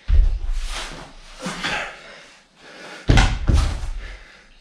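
Two loud, sudden thumps about three seconds apart, each trailing off over about a second, from a person moving fast through sun salutations on a yoga mat, with a softer one in between.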